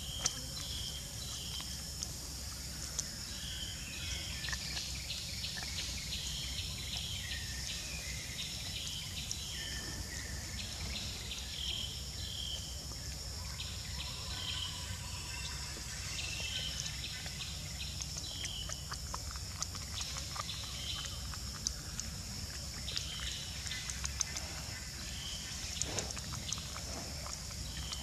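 Outdoor ambience: a steady high insect drone with a short, high call repeating every second or two, a few small clicks and a low rumble underneath.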